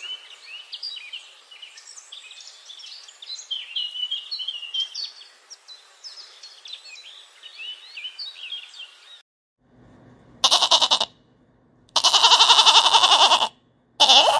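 Parrots chirping and twittering in a quick run of short calls, which stops about nine seconds in. Then a lamb bleats three times, a short bleat, a long one and another short one, louder than the chirping.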